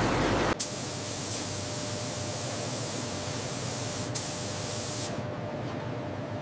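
Steady spray-like hiss. About half a second in there is a sharp click, and the sound cuts to a thinner, higher hiss that runs on, with another faint click a little after four seconds.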